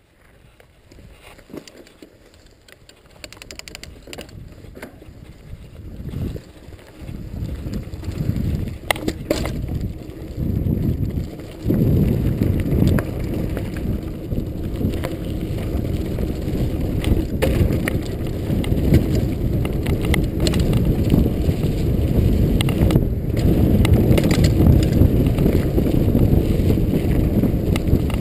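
Norco Storm hardtail mountain bike on 26x2.5 Continental Mountain King tyres riding fast down a dirt singletrack. It starts quiet and builds to a steady, loud rumble as the bike picks up speed, with occasional sharp knocks over bumps.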